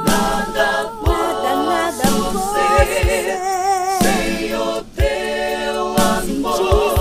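Music: two women singing a Portuguese worship song in harmony, with vibrato on the held notes.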